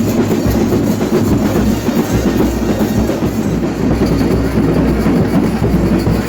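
Loud, dense percussion-heavy music: many drums beaten together in a thick, continuous rhythm.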